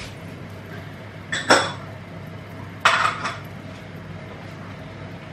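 Two brief clatters of cookware or utensils, about a second and a half apart, over a steady low hum.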